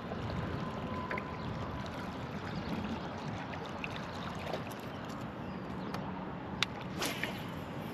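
Water lapping and gurgling against the hull of a small fishing boat, a steady wash with two sharp clicks near the end.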